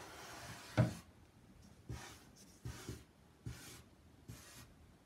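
Felt-tip marker drawing long strokes on heavy paper, a soft scratchy hiss in several stretches, with a few light knocks between them.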